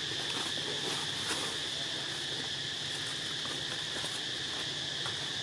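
Insects droning steadily at one high pitch, with faint scattered ticks and rustles.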